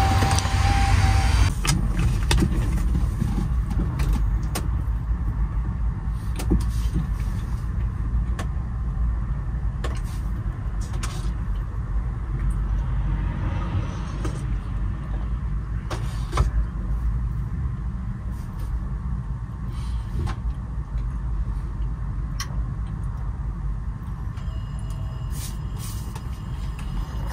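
DAF XF truck's diesel engine running, heard from inside the cab as a steady low rumble, with a few sharp clicks or knocks now and then.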